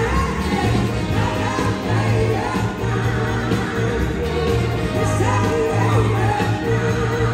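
Live blues-rock band playing, heard from the audience: a woman singing lead over electric guitars, bass and drums, with backing singers.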